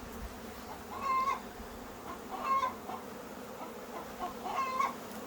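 A chicken calls three times, short pitched squawks about a second and a half apart, over the steady hum of a honey bee swarm flying around the hives.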